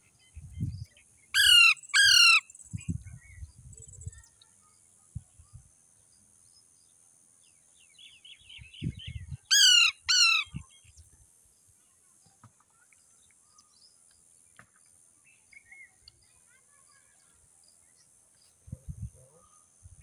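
Alexandrine parakeets giving loud, harsh screeching calls: two in quick succession about a second and a half in, and two more about ten seconds in, each dropping in pitch. Soft chattering comes just before the second pair.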